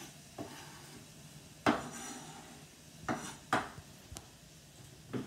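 Kitchen knife chopping leafy greens on a wooden cutting board: a few irregular knocks of the blade on the wood, the loudest about a second and a half in.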